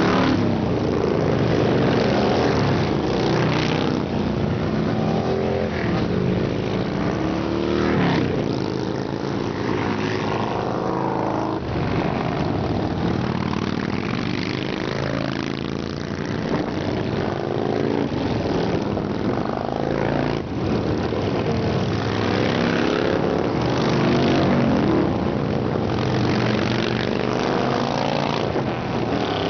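A procession of touring and cruiser motorcycles riding past one after another. Their engines run continuously, rising and falling in pitch as each bike goes by.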